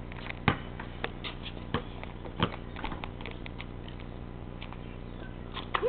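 Scattered knocks and taps at uneven intervals, the loudest about half a second in and another about two and a half seconds in.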